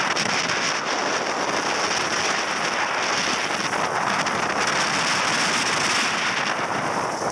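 Steady rushing roar of wind buffeting the microphone over the roar of Niagara Falls, with fine crackling throughout like spray or rain spattering on it.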